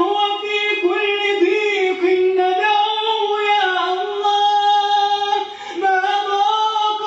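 A male munshid's solo voice chanting an Islamic supplication (du'a) in long, wavering melismatic notes at a high pitch, with a brief break for breath about five and a half seconds in.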